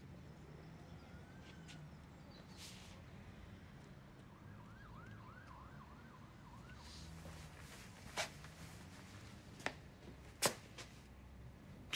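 Quiet room tone with a faint, distant siren-like warble repeating for a couple of seconds in the middle, and a few soft knocks near the end.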